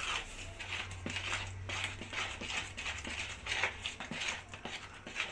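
Metal spoon stirring thick cake batter in a plastic bowl: a run of irregular wet scraping and squelching strokes, a few each second.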